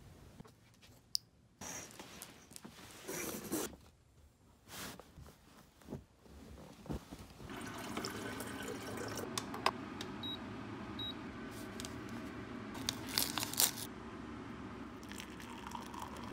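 Scattered rustling and handling noises, then water running steadily into a glass electric kettle. Two faint short beeps come partway through the running water, and a few sharp clicks follow later.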